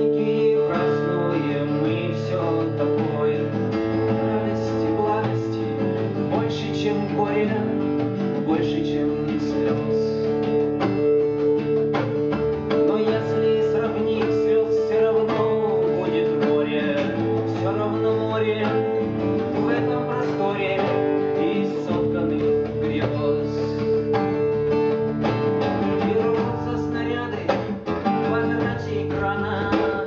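Acoustic guitar strummed continuously as live song accompaniment, with one strong steady note held under the chords.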